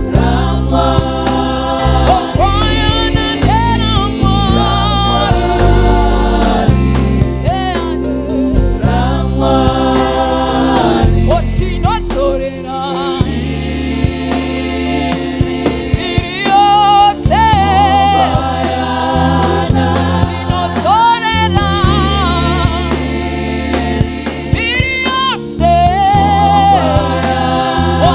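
Live gospel worship music: a choir and congregation singing with a band, steady bass and a regular beat.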